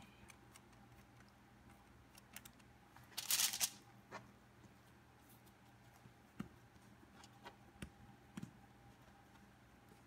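Hands handling bread dough on a plastic cutting board: faint taps and soft handling sounds over quiet room tone, with one short brushing rustle a little over three seconds in.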